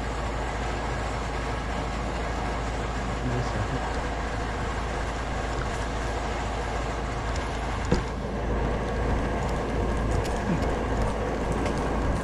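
An engine running steadily, a continuous even drone, with a single short click about eight seconds in.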